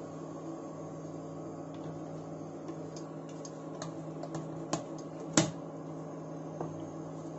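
Bajaj Majesty ICX7 induction cooktop running with a steady electrical hum as it heats a pan of oil, with a few light clicks and taps on top, the sharpest about five seconds in.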